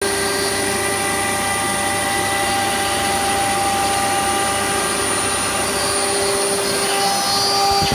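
CNC router running: a steady high whine over a steady mechanical drone, holding level throughout.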